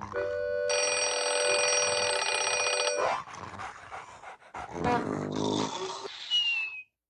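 Sound-effect ringing like an old telephone bell for about two seconds, followed by a string of short animal-like cries and a brief falling whistle near the end.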